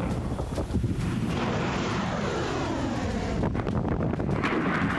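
Solid-fuel rocket motor of a Minuteman III missile launching: a loud, steady rumble with crackle, with sweeps falling in pitch through the middle as the missile climbs away.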